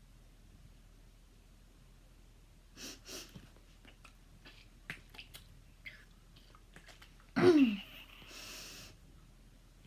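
A single loud cough about seven seconds in, its pitch dropping sharply, followed by about a second of breathy hiss. Fainter breathy noises and small clicks come a few seconds before it.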